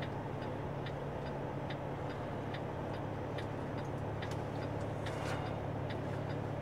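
Truck's turn-signal indicator ticking steadily, about two clicks a second, over the steady low drone of the tractor unit's diesel engine. A short hiss about five seconds in.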